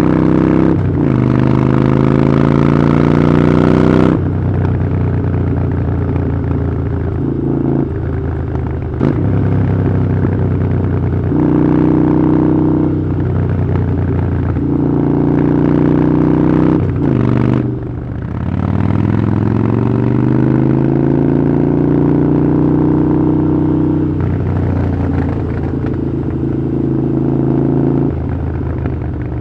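Harley-Davidson Iron 883's air-cooled V-twin running loud through a Vance & Hines aftermarket exhaust. The engine note shifts abruptly every few seconds as the throttle changes, with a dip just past halfway followed by a long rising rev.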